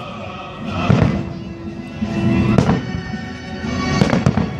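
Fireworks shells bursting, several sharp bangs, over loud music with steady held notes.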